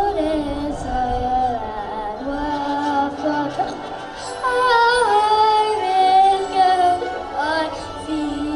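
Music with a woman singing long held notes that slide between pitches.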